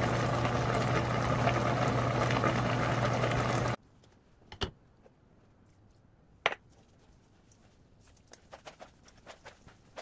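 A pot of greens at a hard boil, a dense bubbling hiss over a low hum, cutting off abruptly a little under four seconds in. Then quiet, with a couple of sharp clicks and a run of light taps as gloved hands handle the cooked greens in a stainless steel bowl.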